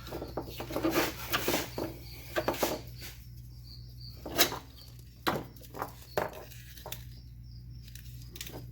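Irregular clicks, knocks and rattles of plastic wiring-harness couplers being worked apart by hand under a Nissan 300ZX's dashboard, over a steady low hum.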